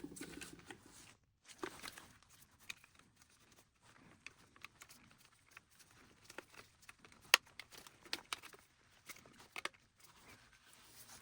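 Hands handling the plastic housing and wiring of a Roomba i7's suction-motor assembly: scattered small clicks and rustles as the cable is routed, with one sharp click about seven seconds in.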